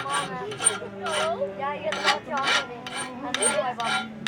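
Hand file rasping back and forth over a forged metal ring in quick, even strokes, about two to three a second: filing it smooth and polished (whitesmithing). The strokes have a harsh, screeching edge.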